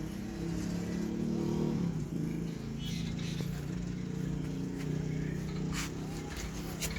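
Hino FR truck's diesel engine running steadily at idle, with a few sharp clicks near the end.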